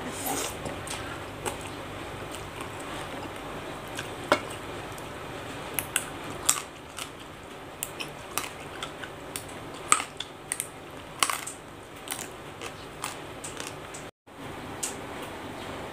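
Close-up eating sounds of rice noodles: slurping and chewing, with many scattered sharp clicks and smacks. Near the end the sound drops out for a moment.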